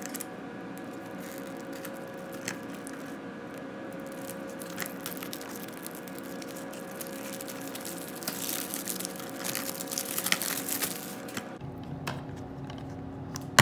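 Plastic shrink-wrap being torn and peeled off a DVD case, crinkling with scattered sharp crackles, busiest about eight to eleven seconds in.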